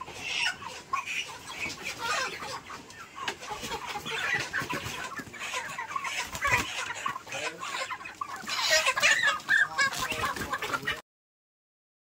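A flock of black broiler chickens clucking and squawking, with scattered knocks and rustles, as the birds are caught for harvest. The sound cuts off to dead silence about eleven seconds in.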